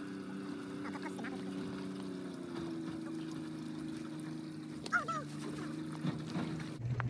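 Steady drone of a motorboat engine out on the lake, shifting in pitch about two and a half seconds in. Short waterfowl calls, like ducks or geese, about a second in and again near five seconds.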